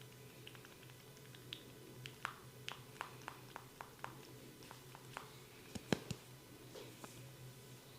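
Hands massaging a head and ears: a run of small sharp clicks and skin smacks from about two seconds in, with one louder snap near the six-second mark, over a steady low hum.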